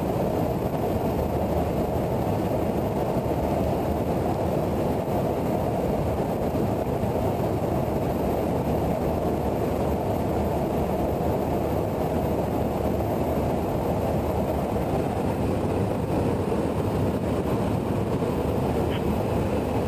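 Steady airflow and engine noise inside a KC-135 tanker's boom operator station in flight, a deep, even rush with no change in level.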